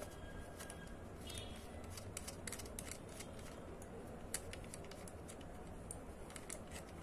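Scattered light clicks and ticks of an Olympus XA-2 compact camera's plastic body and its clip-on A11 flash being handled and turned in the hands, over a steady low hum.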